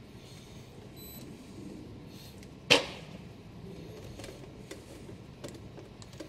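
Handling and tapping a hand-held automotive scan tool. A brief high beep about a second in, one sharp knock near the middle, then a few light clicks, over a low steady hum.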